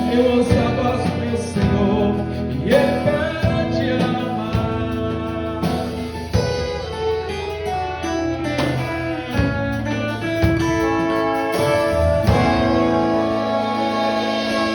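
Symphonic wind band playing the instrumental close of a gospel song: sustained brass and woodwind chords over repeated drum strokes.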